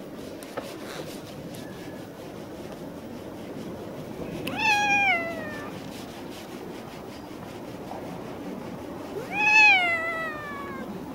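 Black-and-white cat meowing twice, a few seconds apart; each meow lasts about a second, rising and then falling in pitch.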